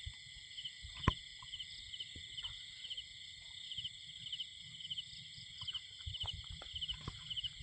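Night chorus of crickets and other insects: steady high-pitched trilling with a pulse that repeats about twice a second. A single sharp click comes about a second in, and some low rumbling comes near the end.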